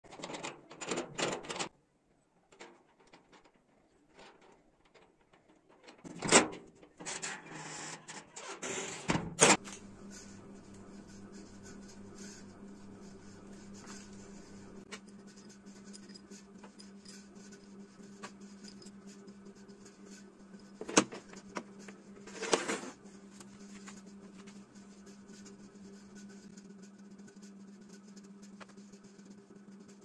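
Metal clicks and rattles of a homemade nut-and-bolt door latch being worked. After a quiet stretch come two louder knocks, then a steady low hum with a few metal clinks as nuts and a bolt are handled on a workbench.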